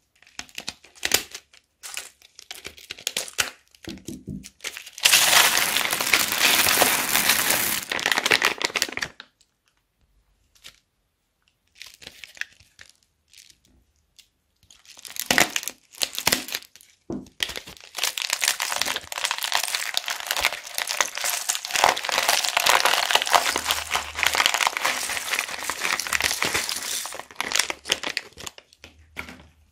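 Plastic piping bags crinkling and being snipped open with scissors, then small gold beads pouring out onto slime in a dense rush of tiny impacts lasting about four seconds. After a pause, another bag is snipped and chopped pink plastic straw pieces pour out in a longer continuous rush.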